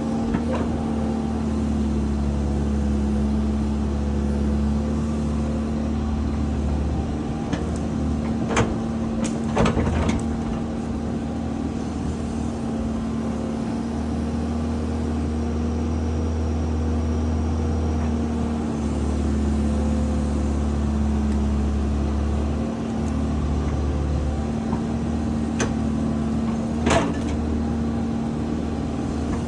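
Excavator's diesel engine running steadily, with a few sharp knocks around eight to ten seconds in and again near the end.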